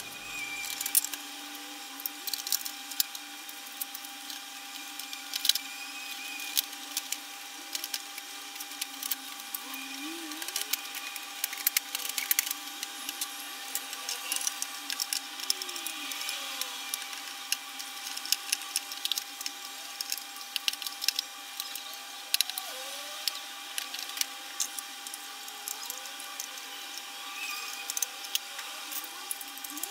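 Hard plastic Habitrail OVO hamster cage parts clicking and knocking as they are handled and fitted together, over a steady hum.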